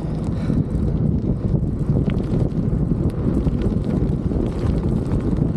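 Wind buffeting the microphone while a gravel bike rolls along a dirt and gravel track, its tyres crunching on the loose stones.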